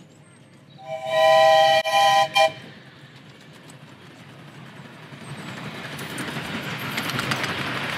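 Steam whistle of a 7¼-inch gauge miniature BR Britannia Class locomotive, No. 70000 'Britannia', blown about a second in as a few blasts, one longer than the rest. Then the running train draws near, its rushing noise growing steadily louder with light ticking.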